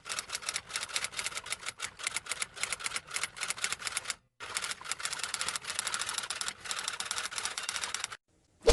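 Typewriter sound effect: rapid, continuous keystroke clicks, broken by a short pause about four seconds in and stopping just after eight seconds. Right at the end comes a short, loud, falling whoosh.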